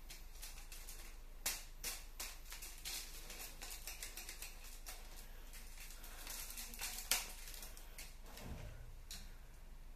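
Plastic clicks and rattles of a Lego-built Nerf rifle being handled, with sharper snaps about a second and a half in and about seven seconds in, and a soft thump near the end.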